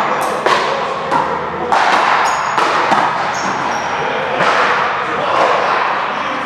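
Repeated sharp knocks and thuds at irregular intervals, each trailing off in a short echo, with voices in the background.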